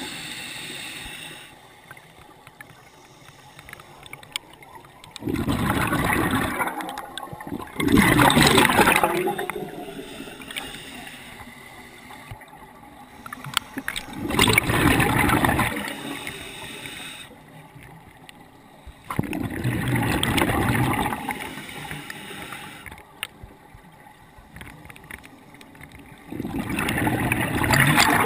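A scuba diver's regulator exhaling: bursts of bubbles gurgling past the camera about five times, each lasting a second or two, with quieter breathing in between.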